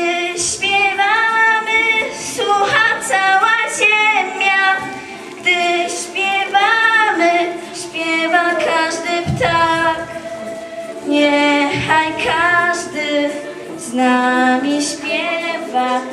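Young girls singing a song into handheld microphones, their voices carried over the hall's sound system.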